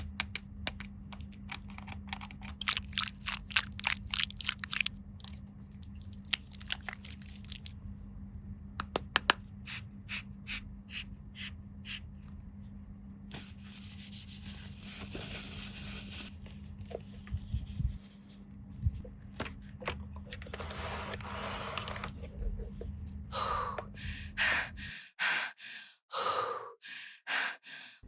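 Quick clicks and taps of hands handling plastic toy pieces and packaging, with a couple of seconds of rustling packaging in the middle. A low steady hum runs underneath and stops near the end.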